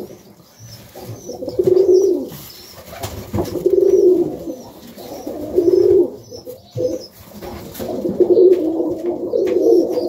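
Serbian highflyer pigeons cooing in a loft: several drawn-out coo bouts, a second or two apart.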